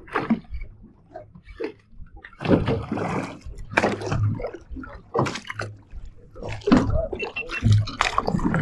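Small waves slapping and sloshing against the boat's hull in irregular splashes, over a low steady hum.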